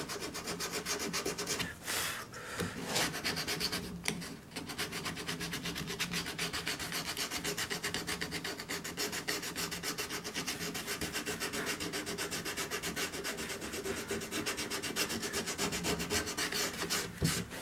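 Sandpaper rubbed by hand over carved wooden leaves in quick, even back-and-forth strokes, with short breaks about two and four seconds in: finish sanding of a carved frame before its final coat.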